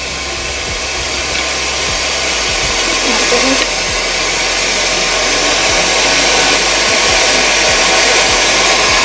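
Forge running with a steady rushing air blast that grows gradually louder, with a few faint knocks underneath.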